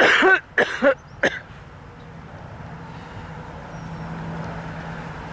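A person's voice: three short, loud throat-clearing or cough-like bursts in the first second and a half. After them a steady outdoor hiss, with a low hum swelling about three seconds in, like a vehicle on the nearby road.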